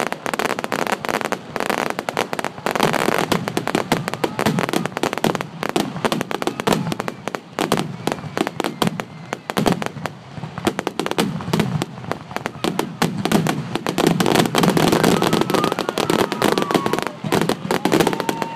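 Fireworks display: a dense, continuous run of shell bursts and crackling, with many shells going off at once and the bangs loudest over the last few seconds.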